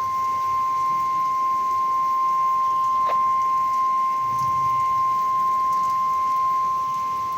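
NOAA Weather Radio's 1050 Hz warning alarm tone: one long, steady, unbroken beep, sounded to signal that a new tornado warning follows.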